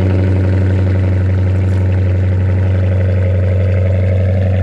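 Chrysler 300's engine idling steadily just after a cold start, a loud, even low hum.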